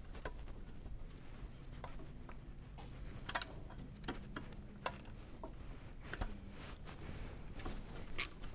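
Scattered light metallic clicks and taps as new brake pads and the pad pin are worked into a motorcycle's rear brake caliper, over a faint low hum.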